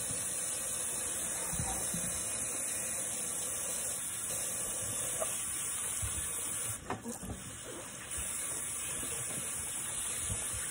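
Kitchen tap running steadily into a sink as vegetables are rinsed under it, with a few soft knocks from handling. The flow sound briefly drops and wavers about seven seconds in.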